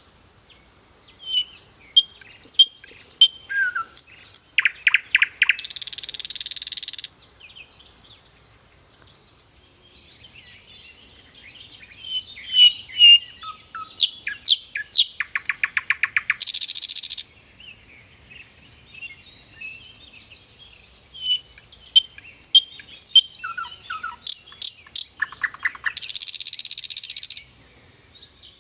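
Songbird chirping and calling: a few high chirps, then a fast run of clicking notes, then a harsh buzzy call about a second long. The same sequence repeats three times, about ten seconds apart.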